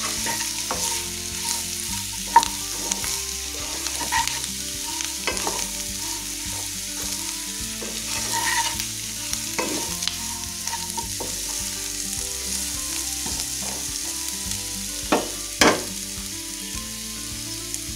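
Boiled elephant foot yam cubes sizzling in oil in a non-stick kadai while a flat spatula turns them, with scattered scraping clicks against the pan. Near the end there are two sharp knocks as the spatula is laid down on the stove.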